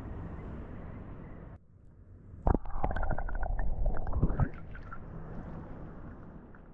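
Water sloshing and gurgling against a camera held at the waterline beside an inflatable paddle board, with a loud run of splashes and knocks in the middle. A steady low rush of water and wind on the microphone comes before and after.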